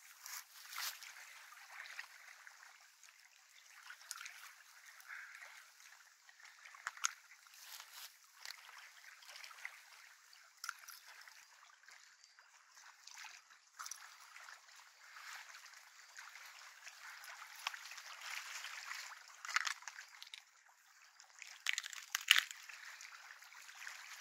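Small waves lapping and trickling at the lakeshore, with irregular sharp clicks and rustles as a caught perch is handled and unhooked by hand.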